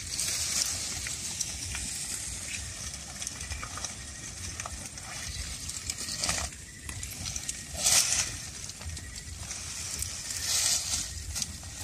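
Stiff pineapple leaves rustling and brushing as people move through the rows, with louder swishes three times.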